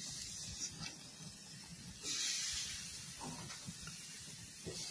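Raw beef steaks sizzling on a hot grill grate as they are laid down. A loud hiss starts suddenly about two seconds in, then slowly fades.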